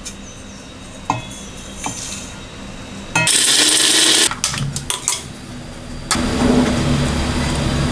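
Kitchen clatter of utensils, a loud hiss lasting about a second, then a water tap running into a sink from about six seconds in.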